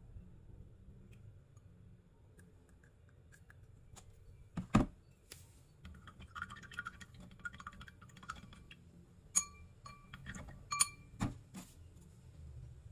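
A wooden skewer stirring liquid in a stemmed glass, clinking and rattling against the glass for a few seconds, followed by a few sharper ringing taps on the glass. A single dull knock comes shortly before the stirring.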